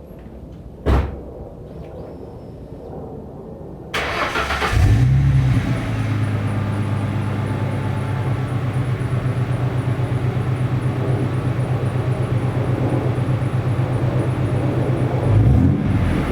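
A sharp click about a second in. Then, about four seconds in, the 1998 Ford Mustang's 3.8-litre V6 cranks and catches, flaring up briefly before settling into a steady idle. It breathes through a 2.5-inch Magnaflow exhaust with divorced 2-inch mid-pipes and all four catalytic converters still fitted, and rises briefly in revs near the end.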